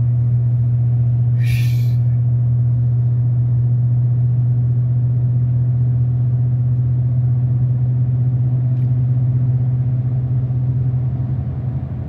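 Steady low drone of road and tyre noise heard inside a moving car's cabin on a wet highway, with a brief hiss about a second and a half in.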